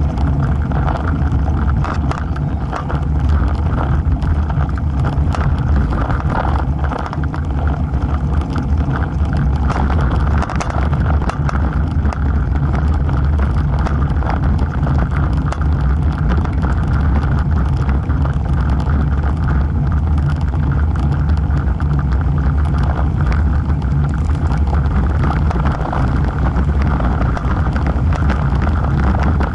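Steady rush of wind buffeting a bicycle-mounted camera's microphone, mixed with the hum of road-bike tyres rolling on asphalt, heaviest in the low bass.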